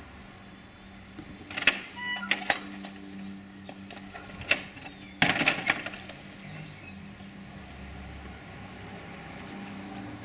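Wooden garden gate being opened and shut: sharp clacks and knocks of its latch and boards, in two clusters about two and five seconds in, over a steady low hum.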